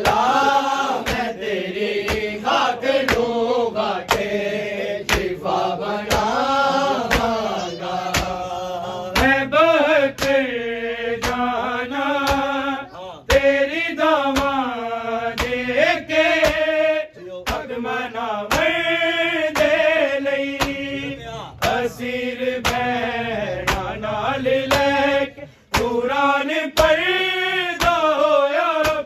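Male voices chanting a Shia noha lament. Regular sharp slaps of matam (rhythmic chest-beating) keep time under the chant.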